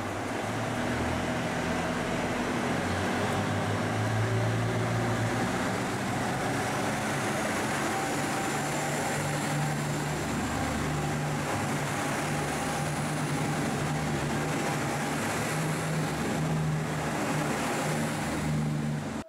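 JR Central KiHa 85 diesel railcar pulling out of a station: its Cummins diesel engines running under load as the cars roll past. The engine drone steps up in pitch about halfway through.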